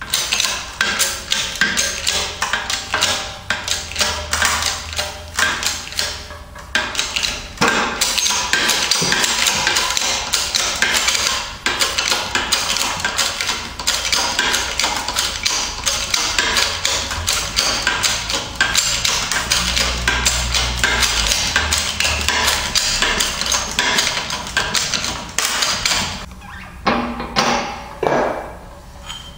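Shop press pressing a tapered roller carrier bearing onto a differential carrier: a fast, steady run of sharp metallic clicks and knocks as the press is worked. It thins to a few separate knocks near the end, then stops.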